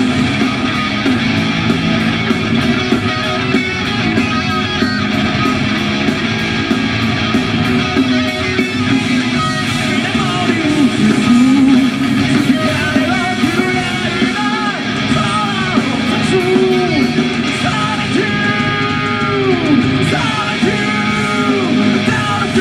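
Live heavy metal band playing: distorted electric guitars, bass and a drum kit with cymbals, loud and continuous, with a bending lead melody line coming in about halfway.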